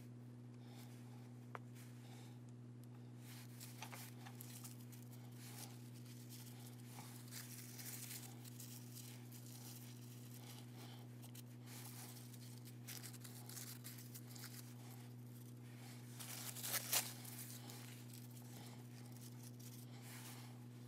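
Green tissue paper being scrunched and handled, rustling and crinkling on and off, loudest about three-quarters of the way through. A steady low electrical hum runs underneath.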